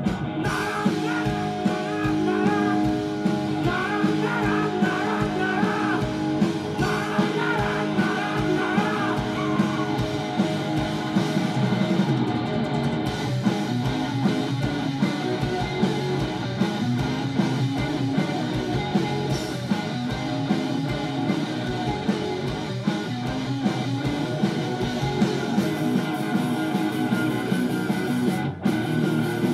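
Live rock band playing loudly on stage, with electric guitar to the fore.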